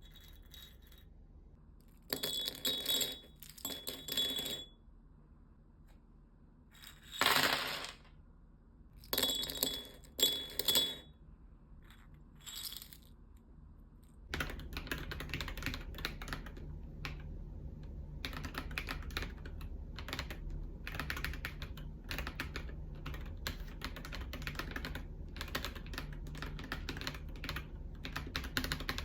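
Several short bursts of clinking and rattling of small hard parts, then, about halfway in, steady fast typing on a mechanical keyboard fitted with Akko V3 Cream Yellow Pro linear switches.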